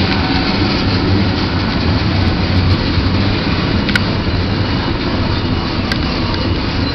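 Freight train of tank cars rolling past, a steady rumble of steel wheels on rail, with two faint clicks, one about four seconds in and one near the end.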